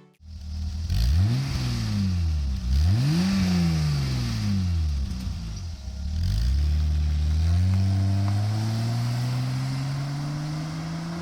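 BMW E30 325i's 2.5-litre straight-six engine revving up and falling back twice, then pulling with engine speed climbing slowly and steadily.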